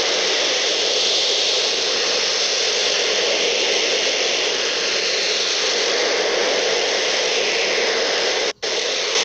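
A DRM digital shortwave signal heard through a receiver in AM mode: a loud, steady rushing hiss like white noise. It drops out for a moment just before the end, then cuts off suddenly.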